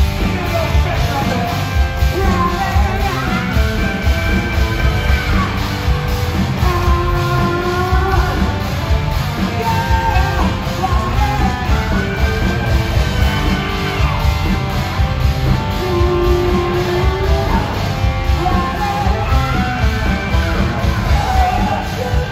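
Live rock band playing, with a male lead singer over electric guitars, bass guitar and drums.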